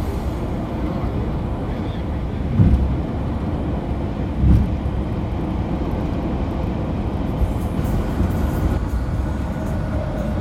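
Car driving on a highway: steady low road and tyre rumble, with two short low thumps about two seconds apart, the first a little over two seconds in.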